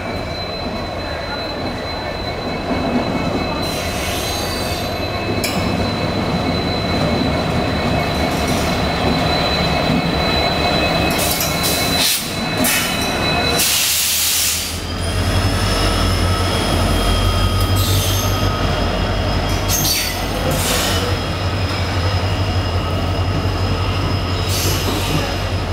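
WDP4D diesel locomotive's EMD 710 two-stroke engine running as it rolls slowly past, with steady high-pitched wheel squeal. A short burst of hiss comes about halfway through, then a heavier low rumble as the coaches roll by, still squealing.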